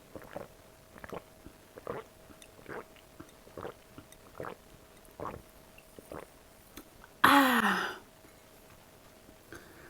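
Close-miked chewing of food, a bite or chomp roughly every 0.8 seconds, then a short loud vocal sound with a falling pitch about seven seconds in.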